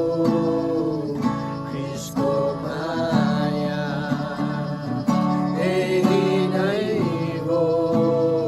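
Background music: a Nepali Christian worship song with strummed acoustic guitar.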